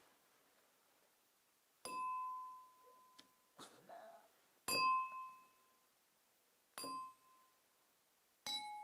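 Water glasses filled to different levels, struck one at a time. There are four ringing dings with a faint tap between the first two, and the last ding is slightly lower in pitch.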